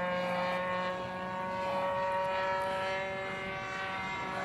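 OS LA 65 two-stroke glow engine of a radio-controlled plane running at high throttle in flight, a steady, even-pitched propeller drone.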